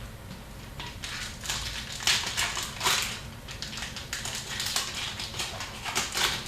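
Foil trading-card pack wrappers crinkling and tearing, with cards rustling as they are handled, in an irregular run of crackles.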